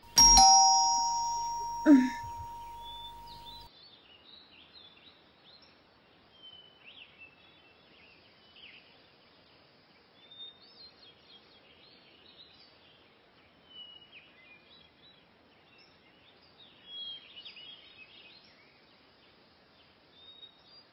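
Electronic ding-dong doorbell chime rings once, with a sharp click about two seconds in, and cuts off after about three and a half seconds. Faint bird chirps follow for the rest.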